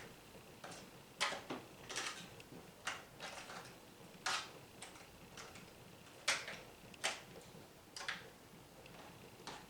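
Faint handling noise: about a dozen short, light clicks and taps at irregular intervals, as small hard objects are moved and set down.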